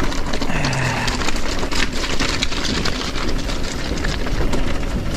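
Mountain bike descending a rough stony track: a dense, irregular clatter of tyres over loose rock and the bike rattling, with wind rushing over the microphone.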